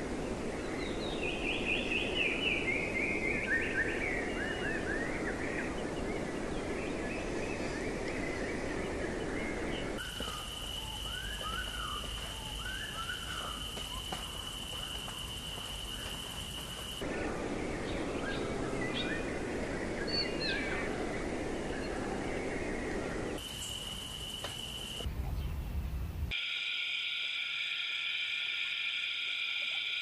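Forest ambience made of spliced segments. Songbirds chirp in quick, falling phrases over a hiss, and the sound cuts abruptly several times to a steady high-pitched drone.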